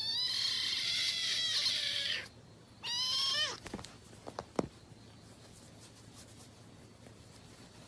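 Kitten mewing: one long, high meow lasting about two seconds, then a second, shorter meow.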